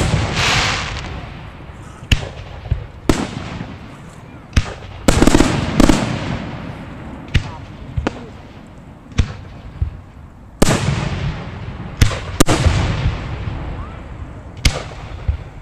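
Aerial fireworks shells bursting close by: about fifteen sharp bangs at irregular intervals, several of them trailing off over a second or two.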